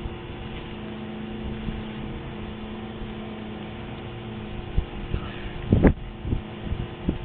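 Two dogs play-fighting on grass, an adult and a puppy, heard as a few short bumps and scuffles in the second half, the loudest about six seconds in, over a steady low hum.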